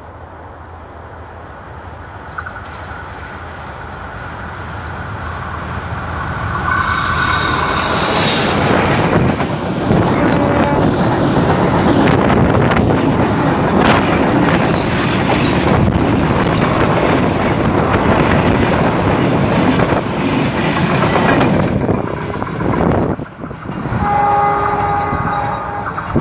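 Bangladesh Railway diesel-hauled intercity passenger train approaching and passing close by. Its rumble grows, and the horn sounds about seven seconds in. Then comes a long, loud run of wheels clattering over the rail joints as the coaches go by. Near the end a train horn sounds again.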